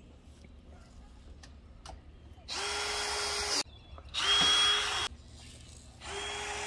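Cordless drill/driver driving screws into a chicken coop's roof in three short runs of about a second each, the motor holding a steady pitch with a high whine; the middle run is the loudest.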